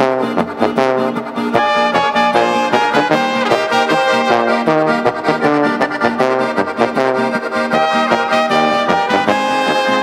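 Recorded German brass band music: trumpets and trombones playing a melody over a steady beat.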